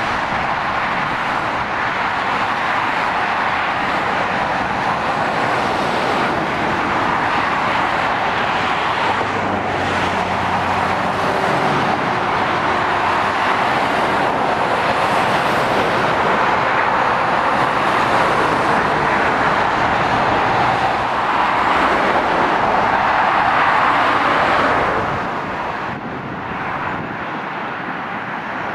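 Steady road traffic on a dual carriageway: heavy lorries and cars passing with continuous tyre and engine noise, swelling as vehicles go by and easing off near the end.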